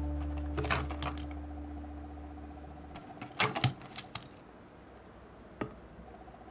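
Sharp clicks and taps of plastic cups and a clear plastic bowl being handled on a tabletop, in small clusters with pauses between. Under the first half a held background music note fades out.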